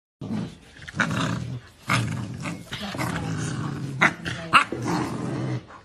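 Rottweilers, an adult and a puppy, growling steadily as they wrestle, with a few short, louder outbursts.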